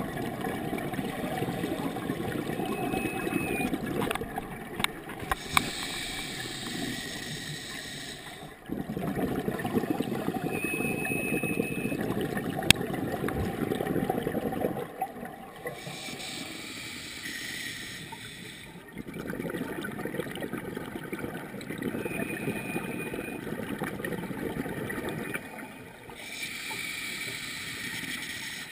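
Scuba regulator breathing underwater: several seconds of low rumbling gurgle from exhaled bubbles alternating with a shorter, higher hiss of air through the regulator on each inhale, about three breaths.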